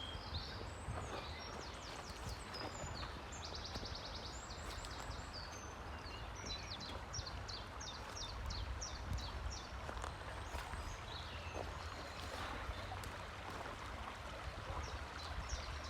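Small birds singing, with many quick high chirps repeated throughout, over the steady rush of a flowing stream and a low rumble.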